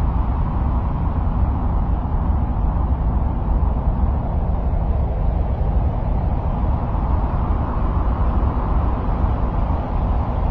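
Steady, deep, rumbling noise with no pitch and no events, the ambient track presented as the sound of Mars. It stays even throughout.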